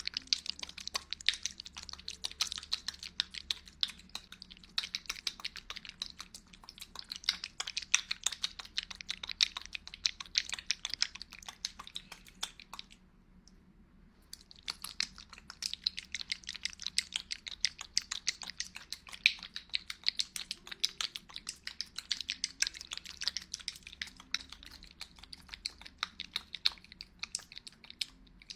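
Close-miked ASMR trigger sounds: dense, rapid wet clicking and crackling, with a pause of about a second and a half partway through.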